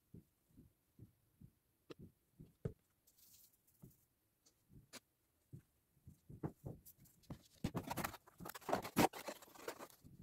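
Hands patting and pressing wet plaster-coated material onto a form: soft, irregular pats about twice a second. From just past halfway it turns into busier rustling and scraping with sharp clicks, loudest about a second and a half before the end.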